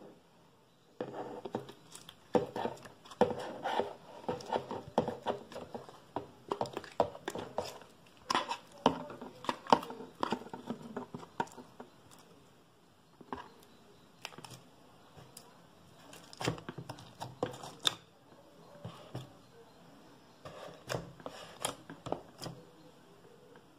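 Hands squishing and kneading a mass of mixed old slime, giving a run of irregular sticky clicks and pops, thickest in the first half and in short bursts later on.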